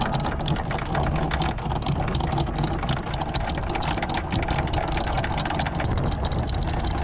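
Anchor windlass hauling in the anchor chain: a fast, continuous clatter of chain links over a steady mechanical hum, as the anchor comes up to the bow.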